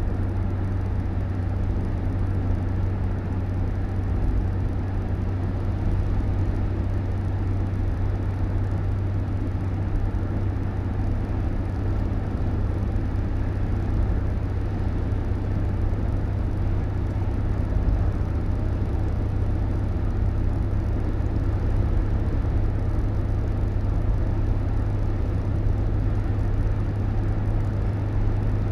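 Steady low rumble of a car on the move, running evenly without change.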